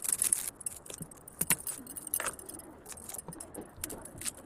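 Metal kitchen utensils clinking and clattering in irregular, sharp taps, with a louder cluster right at the start and another about one and a half seconds in.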